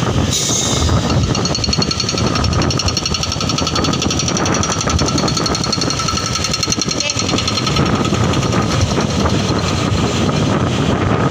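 Motor vehicle engine running close by with a fast, even pulsing, over steady road and wind noise while driving behind a bus.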